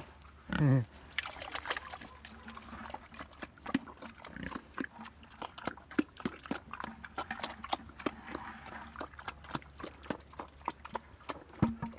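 Pig in its pen: one short squeal falling steeply in pitch about half a second in, then a steady run of quick sharp smacking clicks with a few low grunts.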